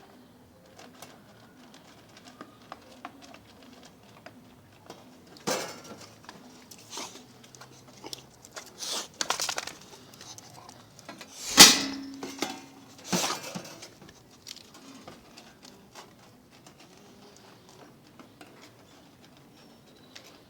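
Irregular light clicks and clatters of dry kibble against a galvanized sheet-metal feeder, with a few louder knocks and one sharp clatter about halfway through.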